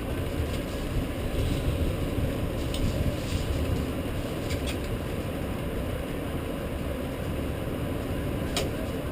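Rain storm: a steady rush of rain with a low rumble under it that swells slightly between about one and four seconds in, and a few sharp ticks, likely drops striking close by.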